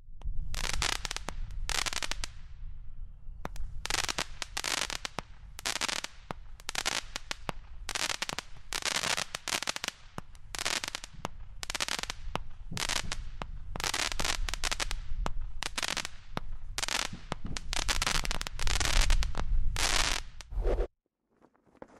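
A 200-gram consumer fireworks repeater cake firing a rapid string of shots, about two a second, each breaking into crackling stars over a low rumble. There is a brief pause about two seconds in, and the shots stop about a second before the end.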